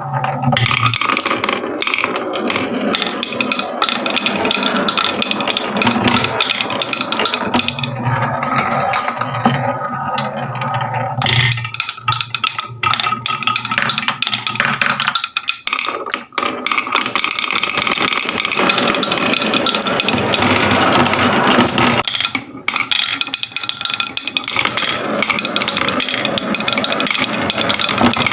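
Marbles rolling and clattering down a marble run: a dense, continuous rattle of many small hard clicks.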